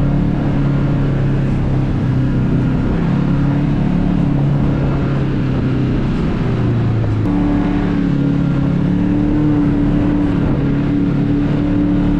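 Kawasaki KRX 1000 side-by-side engine running steadily as the UTV drives along the trail, its pitch dropping briefly about six seconds in and then rising to a higher, steady note about seven seconds in.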